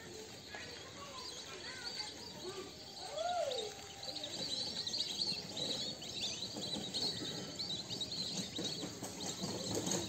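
Outdoor birdsong over a wetland: many short, high chirps and calls, busier from about four seconds in, with one lower rising-and-falling call a little after three seconds.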